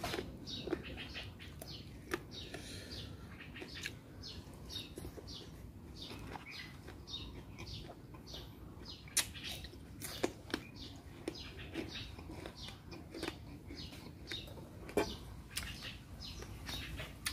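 Close-up chewing and lip-smacking of someone eating a bamboo-shoot salad with fresh leaves by hand: a run of short wet crackles, with a few sharper clicks.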